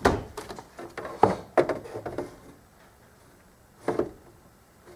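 Knocks and clicks of hands and tools working on a car's dashboard trim: a quick run of them in the first two seconds, then one more knock near four seconds.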